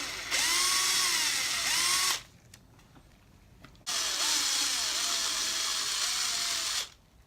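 Power drill spinning out bolts from a winch housing, in two long bursts, its motor pitch sagging under load and picking back up.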